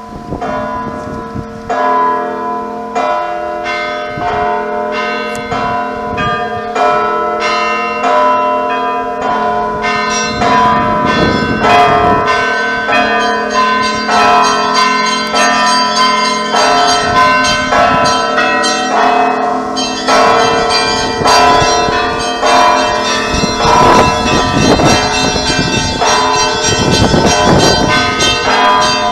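Church bells ringing: several bells of different pitches struck in quick succession over the steady low hum of a large bell.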